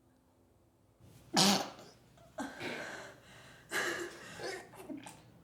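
A person straining to hold in a sneeze: a sharp, loud, stifled burst about a second and a half in, then several shorter cough-like bursts and breaths.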